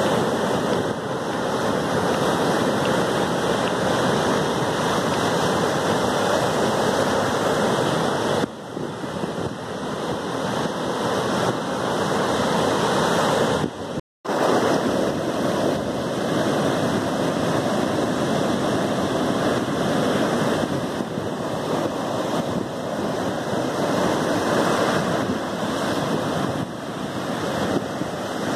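Sea waves breaking and washing up the shore: a continuous rush of surf. The sound drops out for a split second about halfway through.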